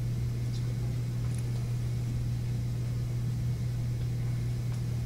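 Room tone in a meeting room: a steady low hum with faint background noise, unchanging throughout.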